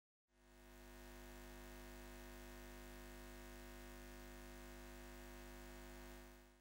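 Faint, steady low hum that fades in just after the start and fades out near the end.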